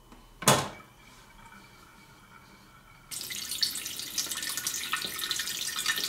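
A short clack about half a second in. Then, about three seconds in, cold water starts pouring in a steady stream from the Bunn Speed Brew Classic's brew funnel into the glass carafe. The flow from the funnel is the sign that the machine's internal tank is now full.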